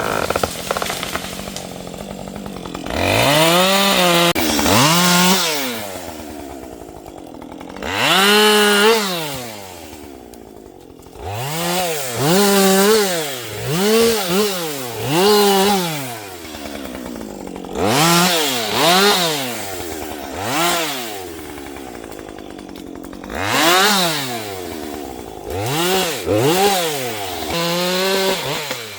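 Chainsaw idling and being revved up and let back down to idle about a dozen times, each rev a quick rising then falling pitch, while cutting into an ash tree.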